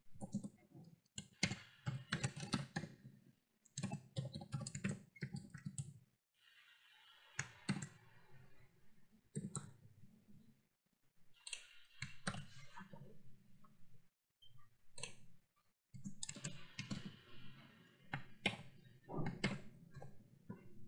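Typing on a computer keyboard: runs of quick keystroke clicks broken by short pauses.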